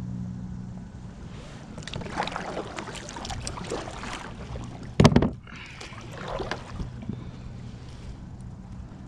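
Water splashing and sloshing, with a loud knock about five seconds in; a low steady hum fades out in the first second.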